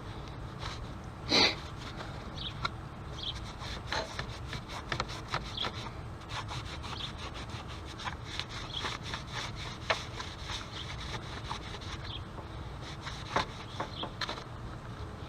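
Hand scrubbing and wiping at a corroded car battery terminal: a dense run of small scratching, rubbing ticks, with one short loud hiss about a second and a half in.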